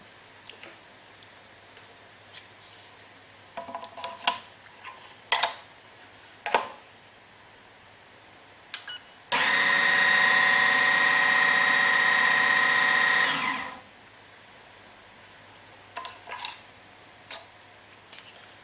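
etzMAX MEDIUM coffee grinder's motor running for about four and a half seconds, a steady whine with a strong high tone, then stopping. Light clicks and knocks come before and after it.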